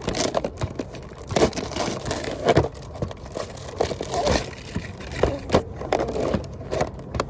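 Toy packaging being opened by hand: irregular crinkling, crackling and scraping of plastic and cardboard, with scattered sharp clicks.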